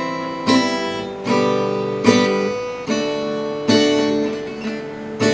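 Acoustic guitar strummed in a steady rhythm, a new chord about every 0.8 seconds, each left ringing.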